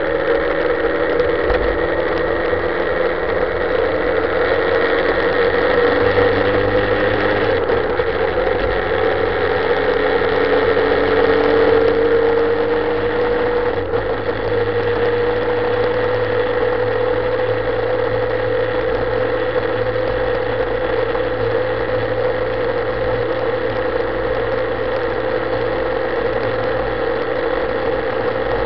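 Motorcycle engine heard from the rider's position while riding on the open road. The engine note climbs slowly as the bike speeds up, dips briefly about halfway through, and then holds steady at cruising revs.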